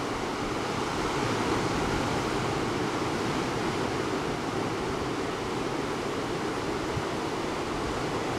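A steady, even rushing noise with no speech.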